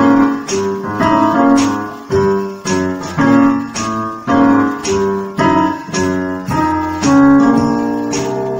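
Digital keyboard played with a piano-like sound: a steady run of struck chords, about two a second, each fading before the next.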